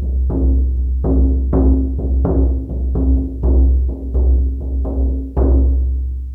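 Shaman frame drum beaten in a steady rhythm, about three strokes a second, each a deep boom with a ringing tone above it. The last stroke, a bit over five seconds in, is left to ring out and fade.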